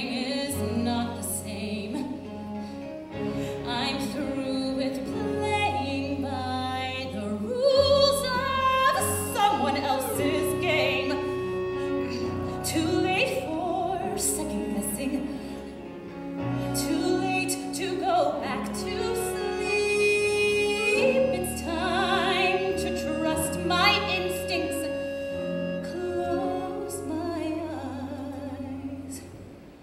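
Women singing a Broadway show tune over live pit-orchestra accompaniment, heard from the audience seats.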